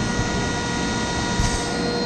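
Rosback 880 single-clamp perfect binder running: a steady mechanical hum and rush with several steady whining tones over it, and a brief clack about one and a half seconds in.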